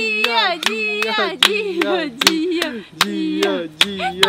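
Hands clapping in a steady rhythm, about four claps a second, over a gliding tune.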